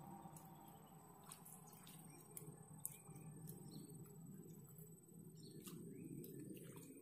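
Near silence: faint open-air ambience with a few soft clicks and, from about three seconds in, several short faint chirps.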